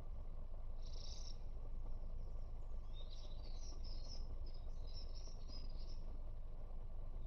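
Small birds chirping, a short burst about a second in and a longer run of chirps from about three to six seconds, over a steady low outdoor rumble.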